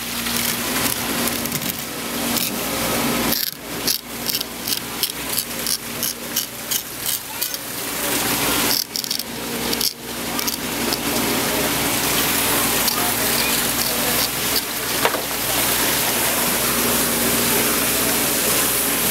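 Knife blade scraping the bloodline out of a gutted kingfish's body cavity in a run of quick strokes, about three to four a second, over a steady hiss and low hum.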